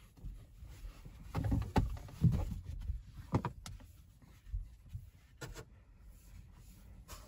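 Cloth rubbing across the inside of a car windshield, with scattered knocks and clicks of handling, heard inside the closed car cabin.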